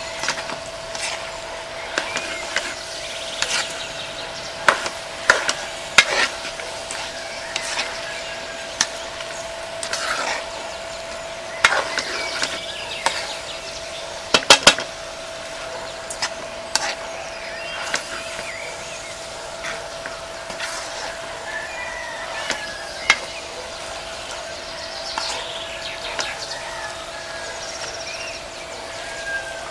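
Spatula scraping and knocking irregularly against an aluminium wok as snail meat and chopped water spinach stems are stirred and tossed, with a steady faint hum underneath.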